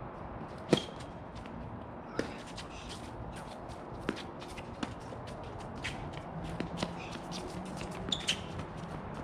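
Tennis rally on a hard court: sharp pops of ball on racket strings and ball bounces, the loudest about a second in and a few more spaced a second or two apart, with faint shuffling footsteps between them.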